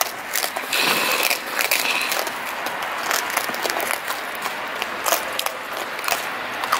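Two raccoons crunching and chewing dry pet kibble up close, many quick sharp crunches and clicks over a steady rustling hiss.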